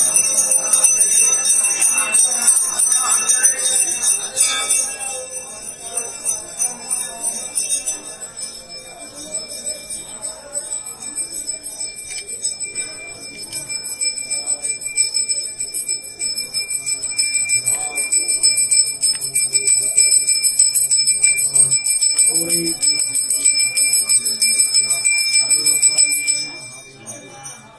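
Temple bells ringing rapidly and without pause, a bright high jingling ring that eases off for a few seconds and then builds again before stopping abruptly near the end.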